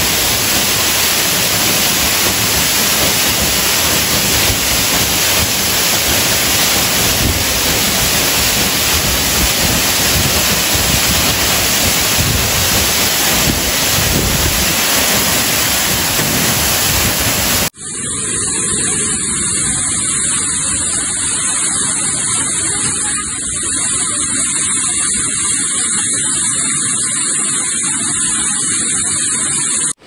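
Steady roar of a waterfall close by. About two-thirds of the way through it cuts abruptly to a thinner, hollow-sounding rush.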